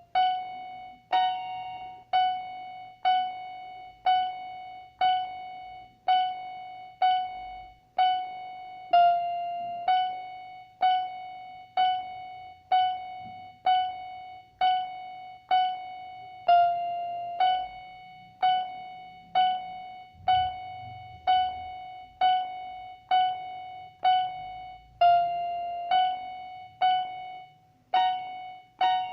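Electronic keyboard playing a slow string of single notes, about one a second, nearly all on the same pitch with an occasional slightly different note, each one dying away before the next is struck.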